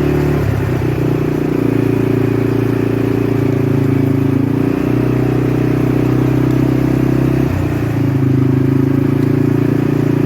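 Vehicle engine running steadily at low speed. Its pitch shifts briefly about half a second in, again about halfway through and once more near the end, as the throttle changes.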